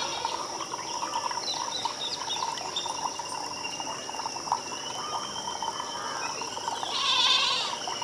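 Outdoor wildlife chorus: many short chirping calls over a steady high insect drone, with a long held call in the middle and a louder call about seven seconds in.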